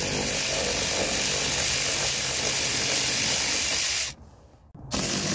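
Cordless electric ratchet running steadily as it backs out a seat-track bolt, stopping for under a second about four seconds in and then starting again.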